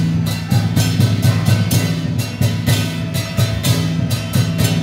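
Temple-festival drums beaten in a fast, even rhythm, about five strikes a second, over a steady low tone.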